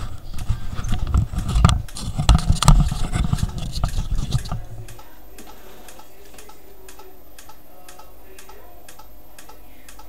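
Rumbling thumps of the camera being handled for the first few seconds, then a steady train of regular sharp clicks, about three a second, from an Omron relay switching a desk fan's power on and off in pulses.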